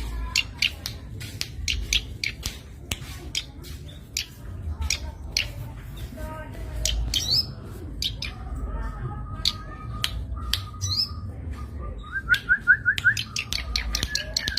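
Zitting cisticola (cici padi) calling: a string of sharp, clicking notes, with short buzzy trills midway and a quick run of rising notes near the end. A low rumble runs underneath.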